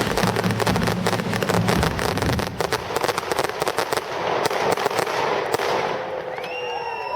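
Consumer fireworks crackling: a dense rapid run of small sharp reports that thins out after about four seconds and dies away. Near the end, people start cheering.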